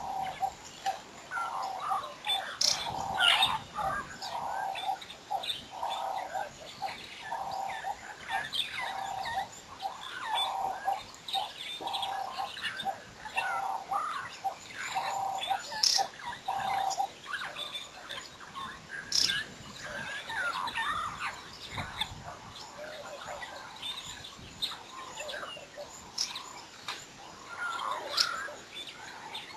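Several birds chirping and calling at once, a busy mix of short calls. A lower note repeats over and over through the first half, then the chirping continues more thinly.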